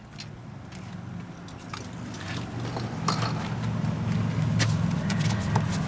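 Scattered light metallic clicks and taps as the old garage door quick-release lock is worked loose and pulled out of the door. Under them a low, steady vehicle engine hum grows louder from about three seconds in.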